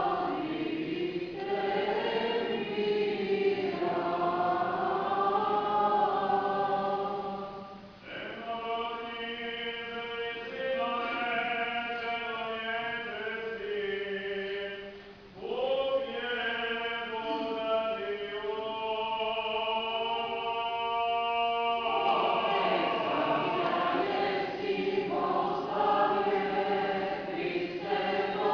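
Church choir singing Orthodox liturgical chant, unaccompanied. From about eight seconds in, it holds long, steady chords over a low drone note, with short breaths between phrases, until about twenty-two seconds in, when the melody moves freely again.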